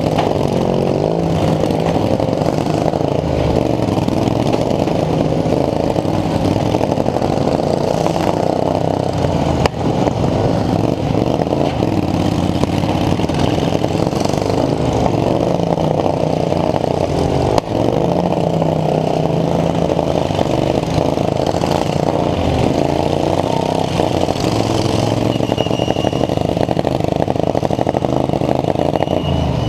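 Racing lawn mower engine running loud and hard, its pitch rising and falling as the throttle changes, with clattering and a couple of sharp knocks.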